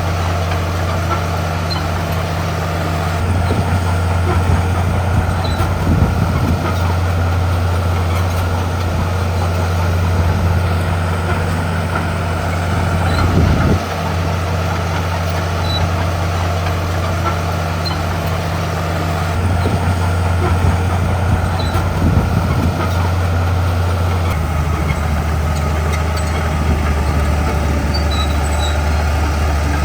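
Heavy diesel engine of a Komatsu D41P bulldozer running under load, its pitch stepping down and back up several times as the load changes, with a few brief clanks.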